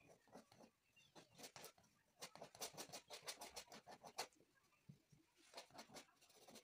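Paintbrush dabbing and scrubbing on a painting's surface: faint, quick scratchy strokes in three spells, the middle one a dense run of about five strokes a second.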